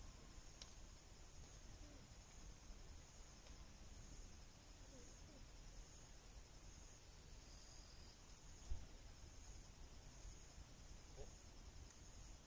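Near silence: faint, steady high-pitched insect chirring, with one faint low thump about nine seconds in.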